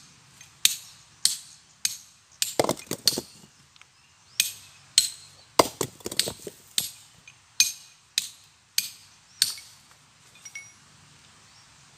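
Hammer blows ringing on steel, clear clinks about one every 0.6 s, stopping about ten seconds in. Twice a quick rattle of several knocks comes in among the blows.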